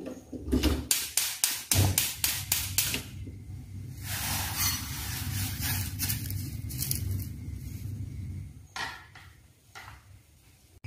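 Gas stove igniter clicking rapidly, about five clicks a second for a couple of seconds. Then granulated sugar is poured into a nonstick pan with a steady hiss for about five seconds, followed by a couple of soft knocks.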